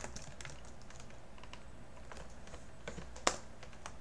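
Typing on a computer keyboard: a run of light, irregular key clicks, with one louder click near the end.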